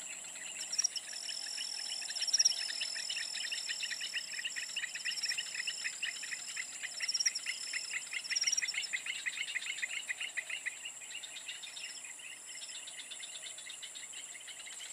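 Insect chorus around a weedy tropical canal bank: a steady high-pitched drone, with a fast pulsing trill from about a second in until about eleven seconds, and a shorter, higher trill repeated several times.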